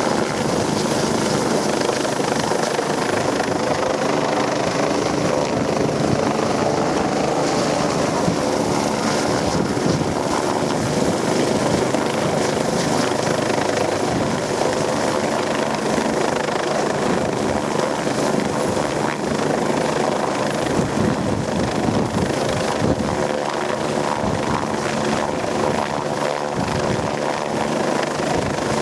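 Helicopter running close by: a steady, loud drone of rotors and engine with no letup.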